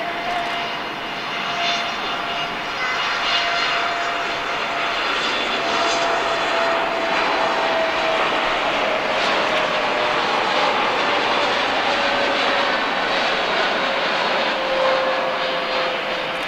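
Boeing 787-8's GEnx-1B turbofans at takeoff thrust during the takeoff roll and liftoff: a loud, steady jet noise with a high tone that slowly falls in pitch as the airliner passes and climbs away.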